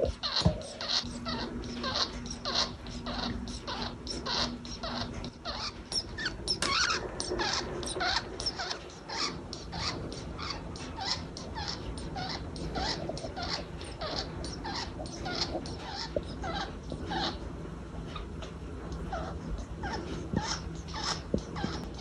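A budgerigar (pet parakeet) making a long string of short, strange chirps, about three a second.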